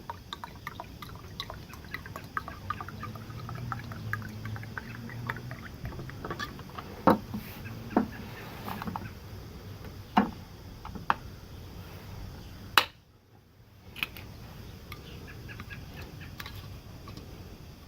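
Acetone being poured into a bottle of transmission fluid to mix a penetrant, with liquid pouring, many small clicks from handling the bottle, and four sharp knocks. The sound drops out briefly about two-thirds of the way through.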